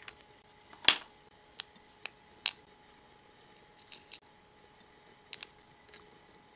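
Miniature replica kitchen pieces being handled and set down on a miniature kitchen counter: a run of about ten sharp little clicks and taps, the loudest about a second in.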